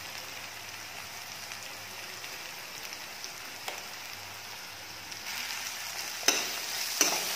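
Sliced potatoes, onion and green chillies sizzling steadily in oil in a metal kadai. About five seconds in the frying gets louder, and a metal spoon stirring the mix knocks against the pan twice.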